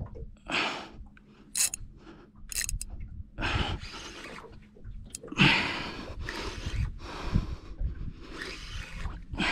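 A person breathing hard in a series of heavy puffs while fighting a big fish on rod and reel, with some scraping in between.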